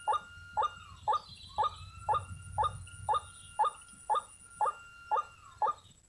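White-breasted waterhen calls used as a lure: a short, harsh note repeated evenly about twice a second.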